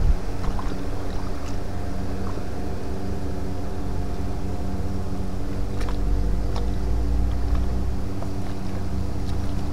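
A motor running steadily at one constant pitch, with a low rumble underneath and a few faint clicks.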